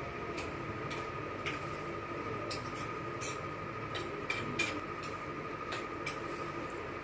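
Steady room noise: a low hum under a constant high whine, with scattered light clicks.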